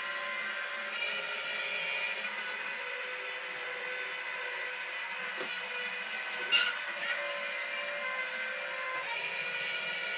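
Small robot's electric drive motor and gears whining steadily while pushing against a heavy boxed anvil. A single sharp knock about six and a half seconds in.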